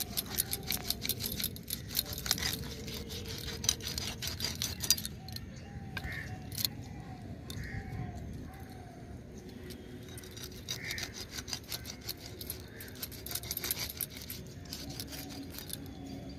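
Bangles jingling on the wrists while a hilsa is cut into ring pieces on an upright boti blade, with irregular clinking and scraping that comes in spells.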